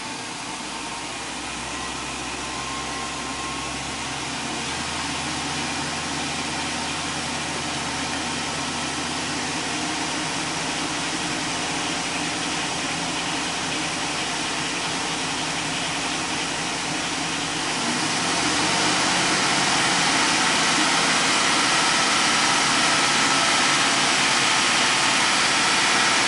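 2003 Chevy Silverado's 6.0 L V8 engine running steadily, held above idle. It grows gradually louder, then steps up again about 18 seconds in, with more hiss after.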